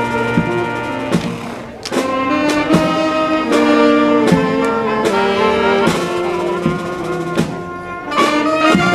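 Brass band playing a tune: saxophones, trumpets and sousaphone over drums, with a short break about two seconds in.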